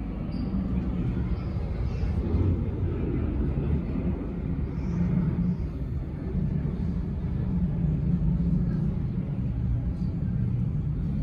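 Low, steady rumble of a distant jet airliner's engines, swelling and easing slightly.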